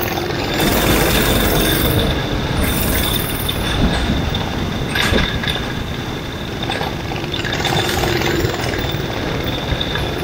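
Ninja kart engines running at racing speed in a close pack, heard from onboard one of the karts, a loud, steady mechanical drone with a few louder swells.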